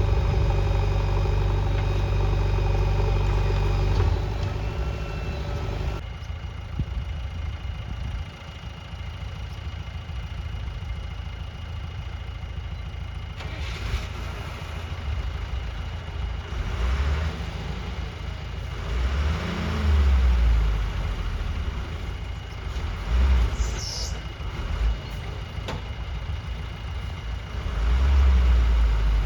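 Heavy diesel engines of a backhoe loader working beside a tipper truck: a steady engine note, then a sudden change a few seconds in, after which the engine swells several times in short bursts of revving under load. A brief high squeal comes late on.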